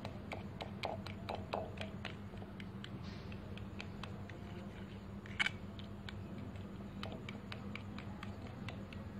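Metal fork stirring mashed banana and beaten egg in a bowl: uneven, light clicks of the tines against the bowl, about three or four a second, with one sharper knock about halfway through.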